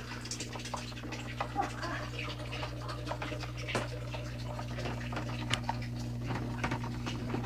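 Small aquarium filter running in a vase betta tank: a steady low hum with irregular small clicks and drips of trickling water.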